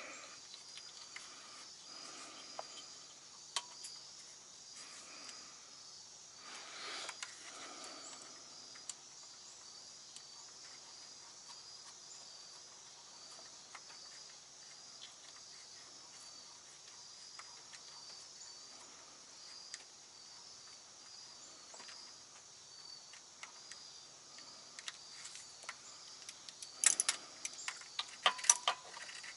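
Steady, evenly pulsing high-pitched insect chirping, with scattered faint clicks. Near the end comes a quick cluster of sharp metal clicks and clinks.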